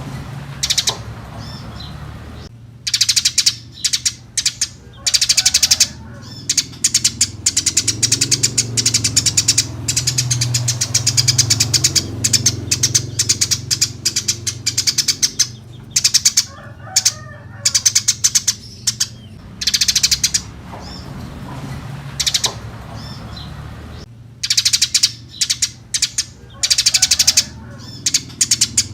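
Eurasian tree sparrows chirping loudly and rapidly in bursts of one to several seconds, with short pauses between, over a steady low hum.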